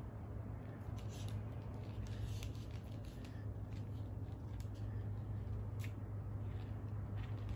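Faint scattered taps and rustles as a cat bats and mouths a hollow plastic ball on a string against carpet, over a steady low hum.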